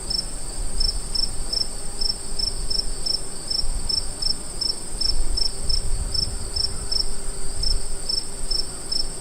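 Crickets chirping: a steady high trill with a slower, even pulse of chirps at about three a second, over a low rumble.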